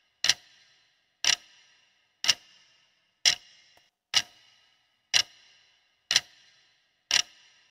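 Clock-ticking sound effect counting down a quiz timer: eight short, sharp ticks, one a second.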